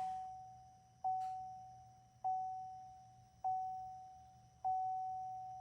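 Electronic vehicle warning chime, one ding about every 1.2 seconds on the same single pitch, each fading away before the next.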